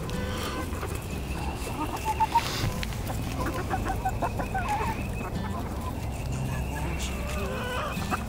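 A flock of backyard chickens clucking while they feed, with a cluster of short clucks a couple of seconds in.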